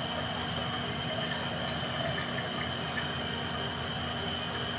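Steady hiss of food simmering in a pan on a gas stove.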